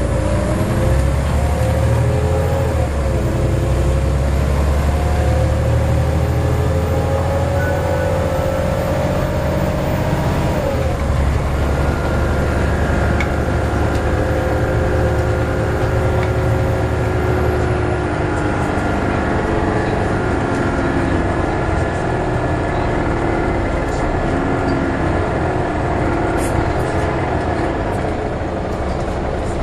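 Volvo B7LA articulated bus's diesel engine and drivetrain, heard from inside the passenger cabin under way. Its whine climbs in pitch for about ten seconds, drops sharply, then runs fairly steadily over a low rumble.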